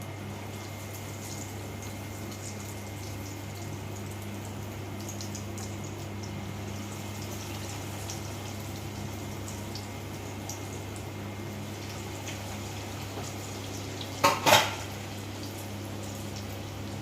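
Breadcrumb-coated chicken donuts frying in hot oil, a steady sizzle with fine crackles over a constant low hum. About fourteen seconds in come two sharp knocks in quick succession, like a utensil striking the pan.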